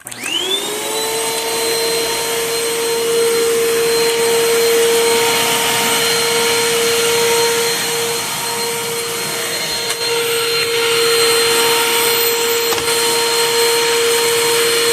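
2009 Hoover Mach upright vacuum cleaner switched on: its motor spins up with a quick rising whine in the first half second, then runs steadily with a high whine.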